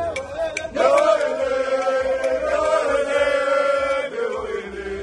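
A group of men singing a Ghanaian jama chant in unison, holding one long note from about a second in. A few hand claps come near the start.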